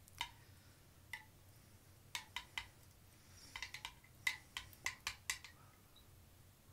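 Small metal spoon stirring salt into water in a stemmed glass, clinking against the glass about a dozen times at an uneven pace, most often a few seconds in.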